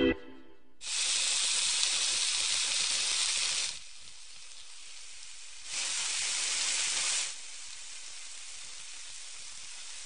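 Sliced meat and vegetables sizzling on a hot grill plate. The sizzle surges loudly twice, for about three seconds and then about a second and a half, with a quieter steady sizzle between and after.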